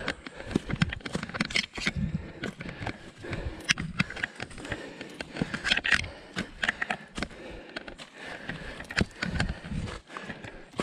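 A hiker's footsteps and scuffs on a trail: irregular knocks and scrapes, some louder than others.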